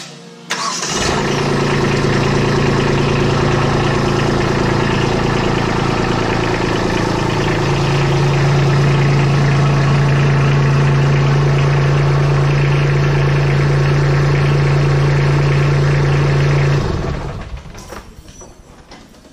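Kubota compact tractor's diesel engine starting about half a second in and running steadily. It grows louder about halfway through and shuts off near the end.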